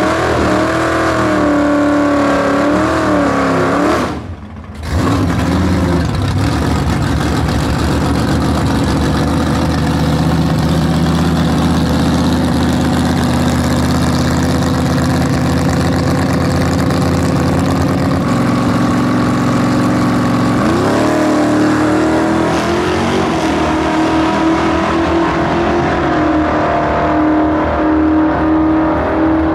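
A 1960s Super Stock drag car's V8 engine is revved and held loud at the starting line. About twenty seconds in, its note rises sharply as the car launches and pulls hard down the strip.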